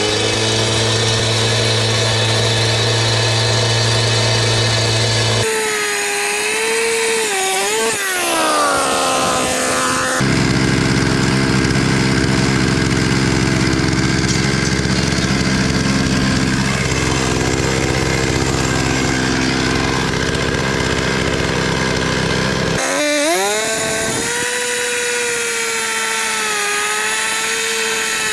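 Gas-powered cut-off saw running at high speed and cutting through concrete retaining wall blocks. Its engine pitch dips and climbs again several times.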